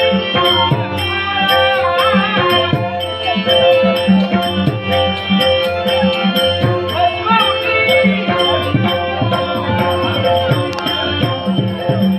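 Traditional Marathi Dashavatar devotional music: a held drone under a moving melody, with hand-drum strokes and a steady, rapid clinking of small cymbals keeping the beat.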